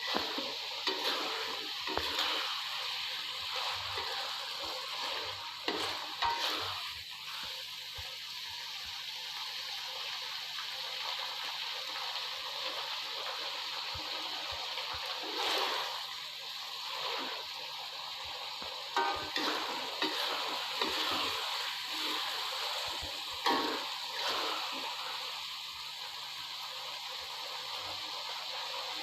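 Kitchen cooking sounds: a steady hiss throughout, with scattered knocks and clatters of utensils against cookware.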